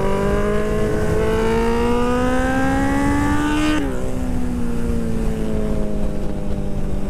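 Suzuki Hayabusa's inline-four engine under hard acceleration, its note rising steadily, then dropping sharply at an upshift about four seconds in and easing slowly downward after it, with wind rush over the rider's microphone.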